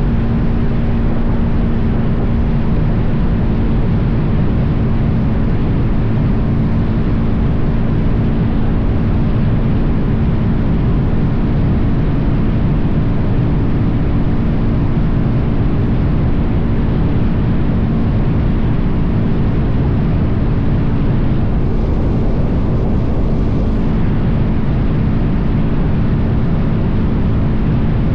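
Suzuki DR-Z400's single-cylinder four-stroke engine running at a steady cruising speed, with heavy wind buffeting on the microphone. The engine's pitch stays level throughout.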